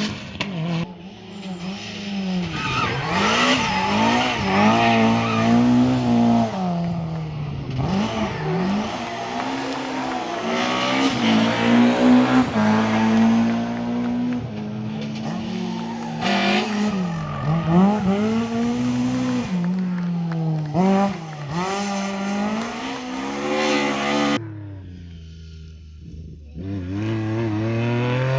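Rally car engines revving hard through the gears, pitch climbing and dropping again and again, with tyre squeal. Near the end the sound drops away briefly before another engine winds up.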